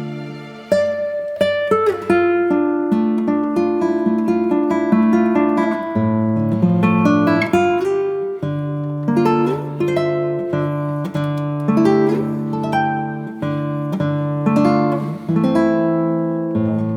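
Background music: acoustic guitar plucking and strumming a melody over sustained bass notes.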